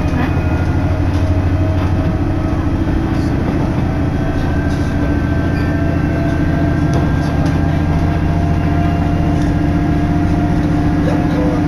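Cabin noise of a diesel railcar under way: a steady drone of the diesel engine and wheels on the rails, with a few faint clicks.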